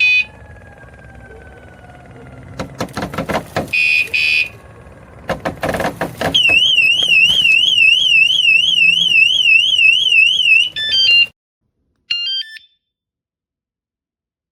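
WSDCAM bike alarm unit beeping: one short beep, then a double beep amid knocks of the unit being handled, then its alarm sounding as a fast high warble of about four or five wobbles a second for some four seconds. It ends in a few stepped tones and cuts off, and a short chirp of stepped tones follows about a second later.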